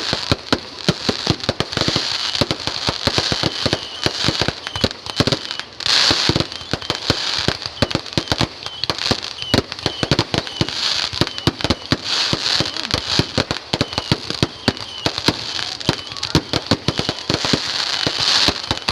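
Fireworks going off in a dense, continuous barrage of sharp pops and bangs, many a second, over a steady crackling hiss.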